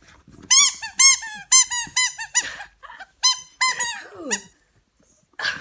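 Rubber chicken squeaky dog toy squeaking about a dozen times in quick succession, each squeak rising and falling in pitch. The squeaks stop about four and a half seconds in.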